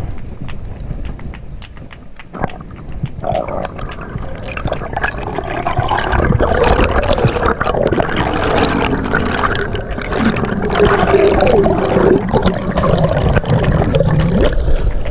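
Water heard through an underwater camera: a steady scatter of crackling clicks, joined about three seconds in by bubbling and gurgling that grows louder as the diver swims up toward the surface.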